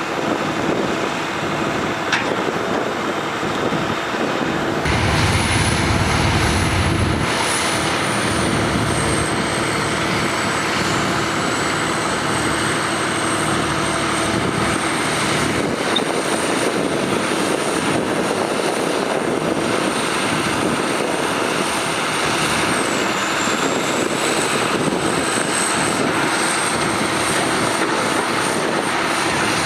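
Heavy diesel earthmoving machinery running steadily, with a deeper rumble swelling for a couple of seconds about five seconds in and a faint high whine above the engine that dips in pitch twice.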